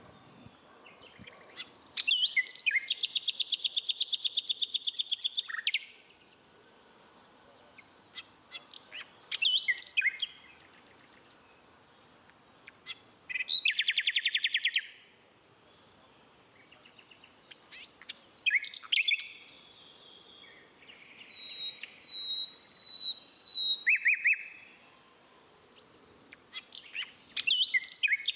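A songbird singing in separate phrases of quick high chirps that run into fast trills, each phrase lasting a few seconds with short pauses between.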